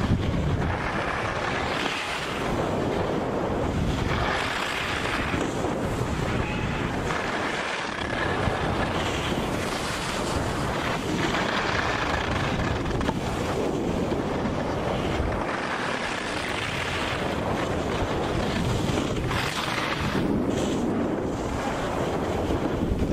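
Wind rushing over a moving camera's microphone, mixed with the hiss and scrape of snowboard edges carving packed snow, swelling and fading every few seconds.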